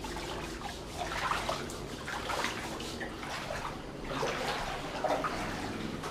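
Water splashing and sloshing in uneven bursts over a steady rush.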